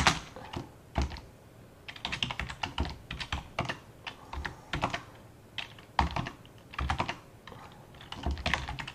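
Typing on a computer keyboard: quick runs of keystroke clicks broken by short pauses, as shell commands are entered.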